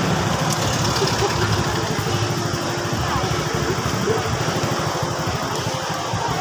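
Small motorcycle engine running nearby, a steady low rumble with a faint steady hum over it.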